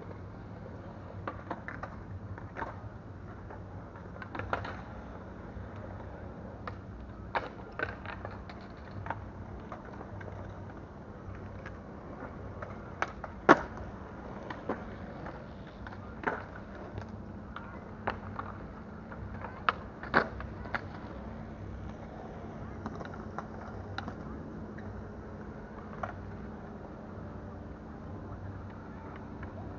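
Scattered sharp clicks and light knocks over a steady low hum. The loudest knock comes about halfway through, and another comes a few seconds later.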